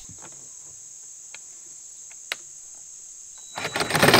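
Crickets chirring steadily, with a couple of faint clicks. About three and a half seconds in, a cordless reciprocating saw starts up and cuts into PVC pipe, loud and rising, drowning out the insects.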